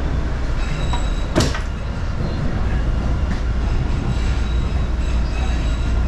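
Inside an MBTA Orange Line subway car running through the tunnel: a steady low rumble of the wheels and running gear, with a single sharp clack about a second and a half in.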